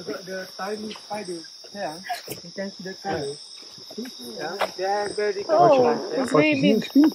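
Night-time rainforest insects keeping up a steady, high-pitched shrill chorus, with people talking over it.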